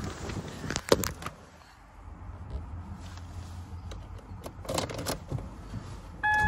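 Clicks and knocks of handling inside a car at the driver's seat, with a jangle of keys and a few more clicks as the ignition key goes in and is turned. Near the end the ignition comes on and the dashboard gives a short, steady electronic chime, the warning for the driver's door still being open.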